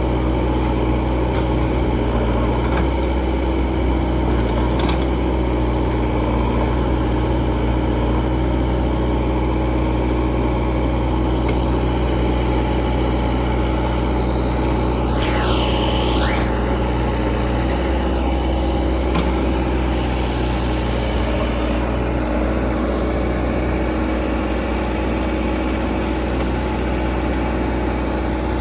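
Heavy diesel engine of earthmoving machinery running steadily at a low, even speed. About halfway through, a brief high whine falls in pitch and rises again.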